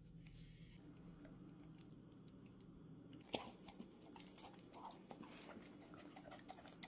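Near silence: room tone with faint, scattered small clicks and smacks, one slightly louder about three and a half seconds in.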